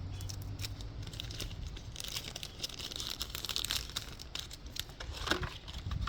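Trading-card packaging crinkling and crackling as it is handled, in quick small clicks, denser for a couple of seconds in the middle.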